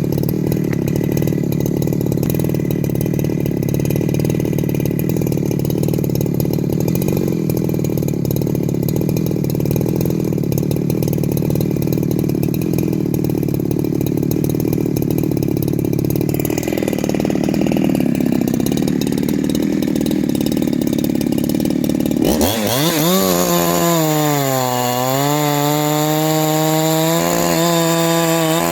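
Ported 372XP-clone chainsaw's two-stroke engine running steadily. About 22 seconds in it is suddenly revved up to a high, loud pitch that wavers up and down.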